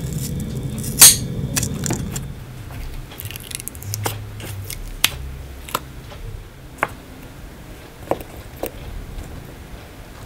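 Scissors snip through double-sided adhesive tape with one loud, sharp click about a second in, followed by scattered light clicks and taps of the tape and small parts being handled.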